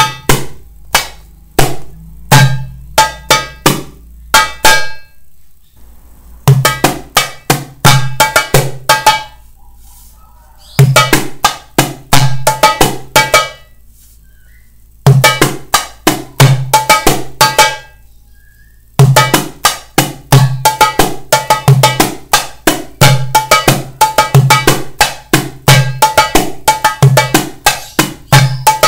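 Darbuka (goblet drum) played by hand: a beginner's variation mixing deep dum strokes with sharp slap, ka and tek strokes. It comes as four short phrases with brief pauses between them, then runs unbroken through the last third.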